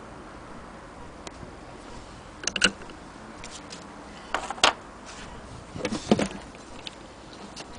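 Handling noise around an antique hand-crank sewing machine: a few scattered clicks and knocks, the sharpest a little past halfway and a short cluster near the end, over a steady faint hiss.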